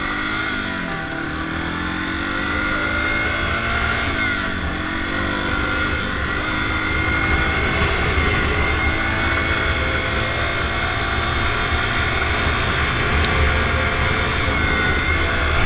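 Dirt bike engine running as the bike is ridden, its pitch dropping and climbing back twice in the first few seconds, then holding steady at speed. Wind rumbles on the helmet-mounted microphone underneath.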